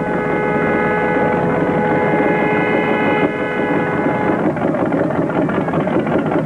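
Horns sounding in a long, steady blast over a dense, noisy background; the horn fades about two-thirds of the way through, leaving the noise.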